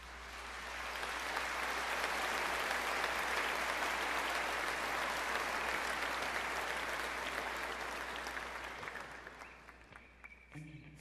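Large concert-hall audience applauding, swelling over the first second or two and dying away near the end. Steady instrumental tones of the next piece come in as the applause fades.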